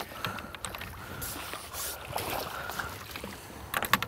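River water splashing and sloshing as a landing net holding a just-caught barbel is drawn in and lifted from the water, with a quick cluster of clicks near the end.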